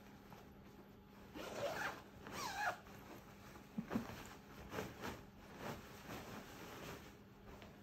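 Zipper of a disposable protective coverall being pulled up the front, two quick zips about one and a half and two and a half seconds in, followed by a couple of light clicks and the rustle of the papery suit fabric.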